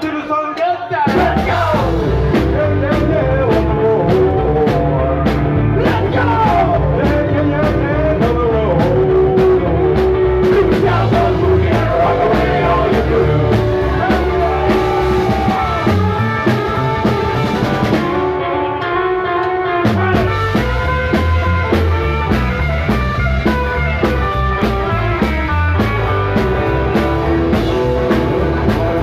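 Live rock and roll band playing with a steady drum beat: male singing over electric guitar and upright bass. The sound thins out briefly about eighteen seconds in, then the full band comes back.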